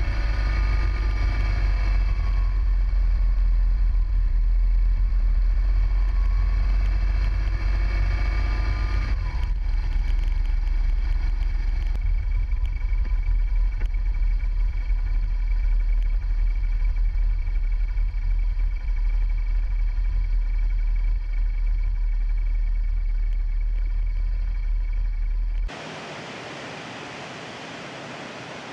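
Motorcycle engine running as the bike rides along, under a heavy low rumble; the engine note rises and falls over the first several seconds, then holds steady. About three seconds before the end it cuts to the steady rush of a waterfall.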